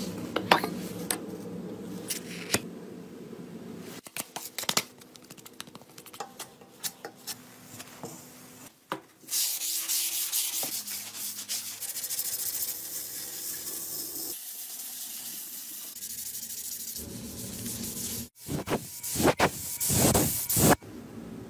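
Body filler on a steel motorcycle fender being sanded: a loud, steady rasping hiss for about five seconds in the middle. Scattered clicks and knocks come before it, and near the end a spray gun gives a few short, loud hisses as paint goes on.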